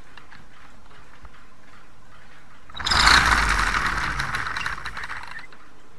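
HEXBUG VEX Robotics Gear Racer rubber-band car released on a hard floor, with one rubber band driving it through the second gear. Its plastic gear train whirs and rattles loudly for about two and a half seconds, starting suddenly about three seconds in and fading as the band unwinds.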